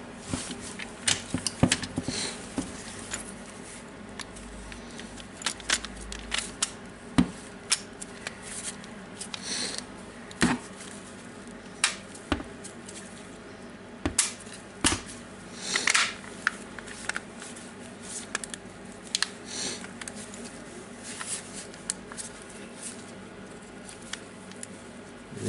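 Irregular clicks, taps and light knocks of a DeWalt brushless hammer drill's plastic housing halves being fitted and pressed together by gloved hands, with brief rustles as the tool is turned over.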